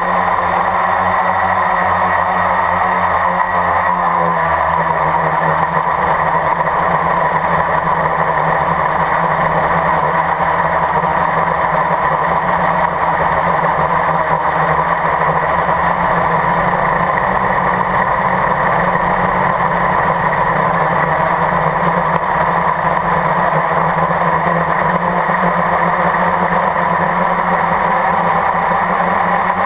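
Blade 350 QX quadcopter's electric motors and propellers running steadily in flight, loud and close as heard from the onboard camera.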